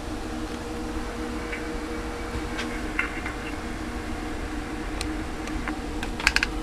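Steady electrical hum and hiss, with a few light clicks about three seconds in, at five seconds and near the end.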